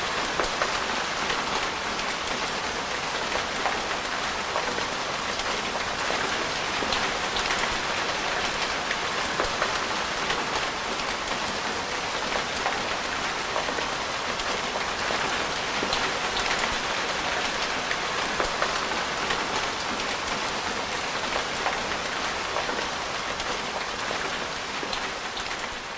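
Steady rain falling, a dense hiss dotted with many individual drop ticks; it starts to fade out near the end.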